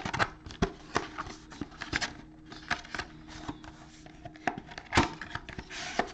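A cardboard trading-card box and its foil-wrapped pack being handled: an uneven run of clicks, taps and cardboard rustles, with one louder tap about five seconds in.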